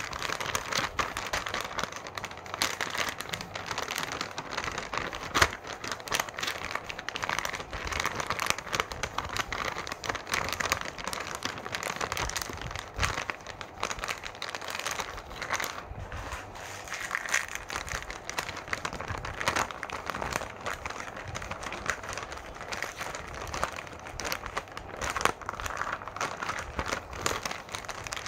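Shiny metallised plastic candy pouch crinkling as it is held and turned over, with many small irregular crackles throughout.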